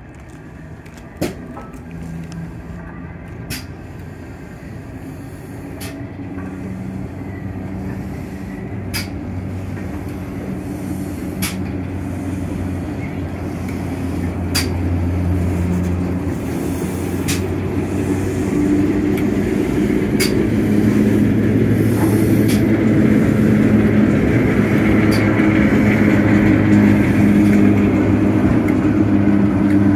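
Class 08 diesel shunter's English Electric six-cylinder engine running as the shunter moves the coupled steam locomotive, growing steadily louder as it draws near. A sharp click sounds every two to three seconds.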